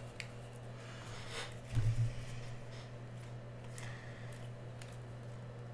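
Trading cards being handled and slid through the fingers, with soft clicks and rustles of card stock, over a steady low hum. A brief low thump comes about two seconds in.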